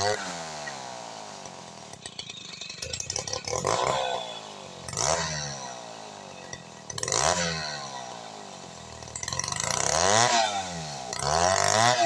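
Two-stroke chainsaw revving up and dropping back toward idle several times, its pitch rising and falling with each burst of throttle.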